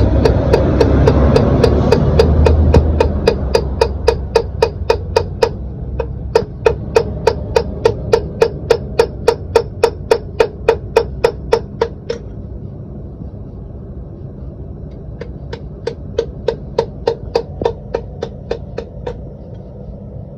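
Steel hammer blows on the metal of a heavy truck's driveshaft yoke, in steady runs of about three to four blows a second, each blow ringing. The blows pause for a few seconds and then resume. A loud low rumble is under the first few seconds.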